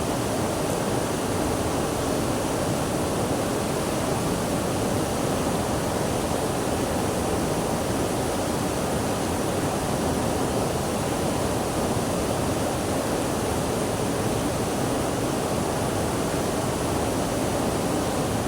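Running water rushing steadily and without a break, a constant even hiss.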